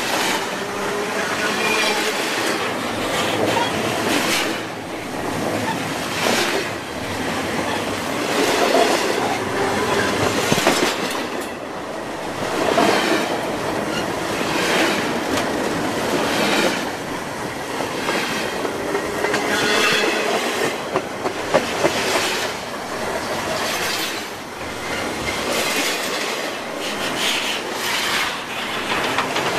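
Wheels of a double-stack container train rolling past on the rail at close range: a continuous rumble with repeated clatter as the cars' wheels go by, swelling and easing every few seconds. Thin wheel squeal comes and goes, and a few sharp clicks sound a little past two-thirds of the way through.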